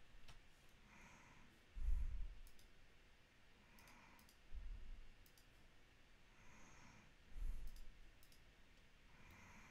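Close-miked breathing, a slow in-and-out about every three seconds, each breath out landing as a low puff on the microphone, three times; light computer mouse clicks in between.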